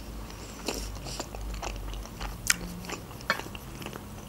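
Close-miked chewing of a mouthful of egg and tomato, with a few sharp mouth clicks spread irregularly through the chewing.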